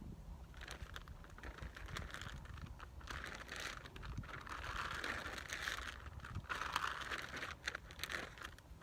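Feed sack being flapped and shaken, its open bag rustling and crinkling in uneven bursts, busiest in the second half.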